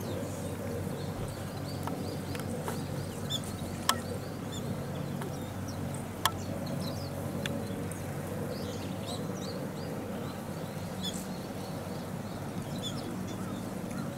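Japanese white-eyes (mejiro) calling among the blossoms: short high chirps scattered throughout, over a steady low background hum. Two sharp clicks, about four and about six seconds in, are the loudest sounds.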